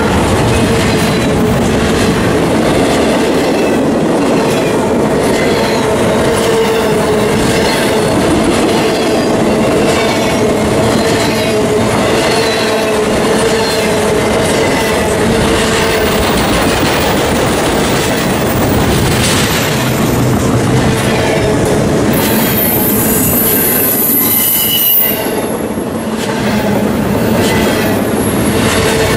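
Intermodal freight train of well cars rolling past close by: steel wheels clacking over the rail joints with a steady squeal from the wheels. A sharper, high-pitched wheel squeal rises for a few seconds near the end.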